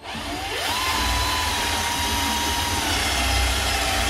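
Electric drill spinning up and drilling out a rivet on a car door check strap (hinge limiter) housing. The motor's whine climbs in pitch over the first second, then holds steady and sinks slightly under load.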